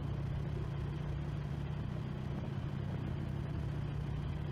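Harley-Davidson Road King's V-twin engine running steadily at cruising speed on the highway, under a constant rush of wind and road noise.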